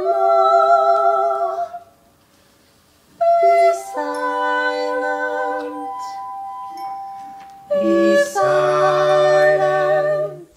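Women's voices singing long held notes in harmony, a cappella, in three phrases with short pauses between them; the first phrase wavers with vibrato.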